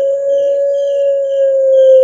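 Puter pelung (ringneck dove) holding one long, steady note of its drawn-out call.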